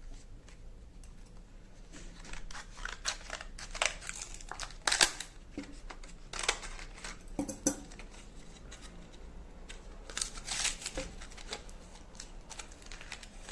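A combination padlock in its plastic retail packaging being handled, with irregular crinkles, scrapes and clicks; the loudest comes about five seconds in.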